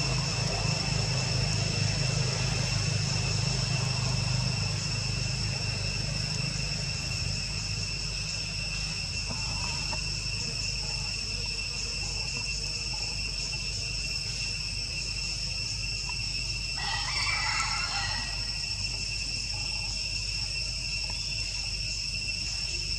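Steady, high-pitched drone of insects, such as crickets or cicadas, in the forest. A low hum fades out about five seconds in, and a brief higher-pitched sound comes about seventeen seconds in.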